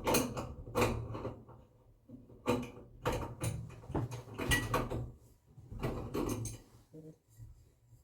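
Old shower head being worked loose and unscrewed from the shower arm: a run of irregular short scraping, grating strokes from the fitting turning on its threads, over a steady low hum.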